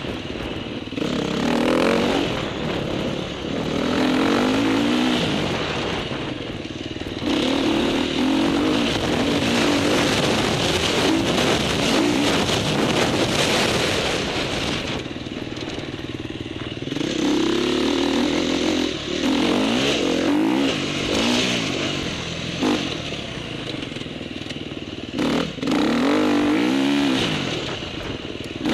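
Motocross dirt bike engine heard on board, its revs climbing and dropping back again and again as the rider accelerates and backs off, over a steady rushing noise.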